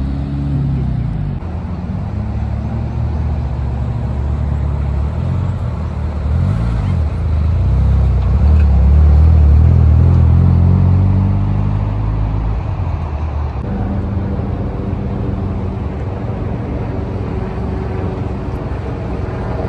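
Car engines running at low revs, a deep rumble with the pitch shifting now and then as revs change. It grows louder about eight seconds in and eases off again a few seconds later.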